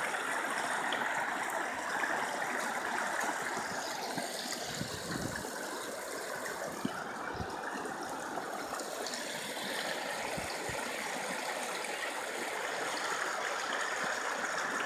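Floodwater rushing across a submerged road, a steady even rushing noise that eases a little in the middle.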